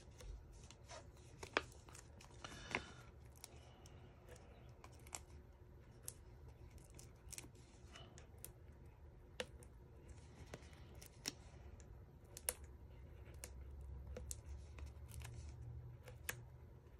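Faint, scattered small clicks and crinkles of mini dimensionals, small foam adhesive dots, being picked off their backing sheet and pressed onto cardstock, over a low hum.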